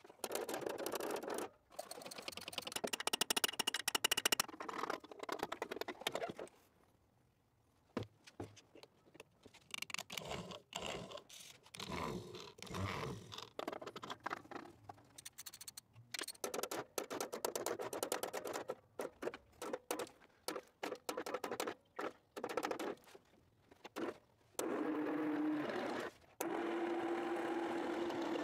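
Hand tools working on the metal of an old car's engine bay: scraping, clicking and tapping in quick runs broken by short pauses. Near the end a steady hum comes in twice.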